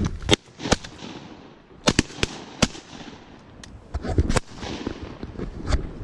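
Shotguns firing at incoming ducks: a quick series of sharp reports over several seconds, some loud and some fainter, as both hunters shoot and bring down the birds.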